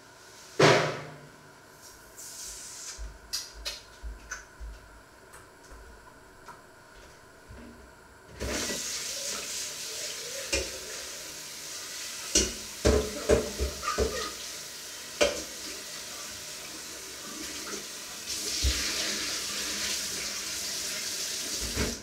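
A kitchen tap running into a sink from about eight seconds in, with dishes knocking and clattering as they are washed by hand. A loud thump about a second in and scattered knocks come before the water starts.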